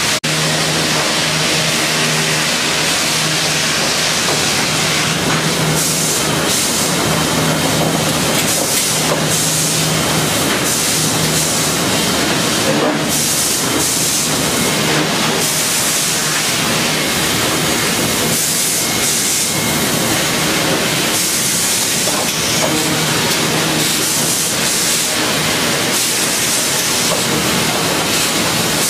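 Chip-N-Saw sawmill machine running, a loud, steady mechanical din with a hiss. From about six seconds in it brightens again and again into louder stretches of high hiss.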